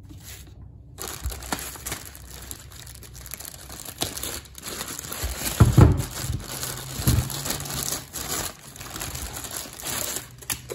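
Clear plastic bag crinkling and rustling as hands pull it off a rotary scissors trimmer head, with a couple of dull knocks around the middle as the unit is handled.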